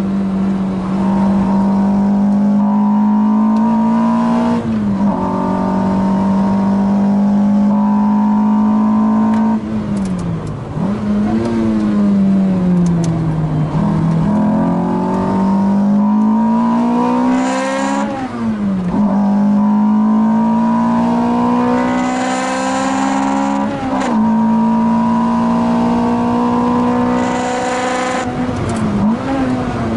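Car engine running hard at high revs on a race track. Its pitch holds high and dips then climbs back several times as the gears change.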